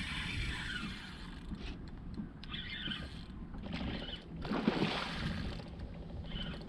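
Steady low rumble of a fishing boat's motor, with a few short scuffing noises and one sharp knock about two-thirds of the way through.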